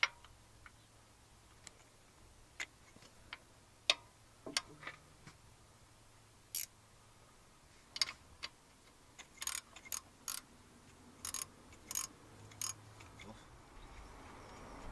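A 13mm spanner clicking against a nut on the coil pack bracket as it is worked loose: about fifteen sharp, irregular metallic clicks, closer together in the second half.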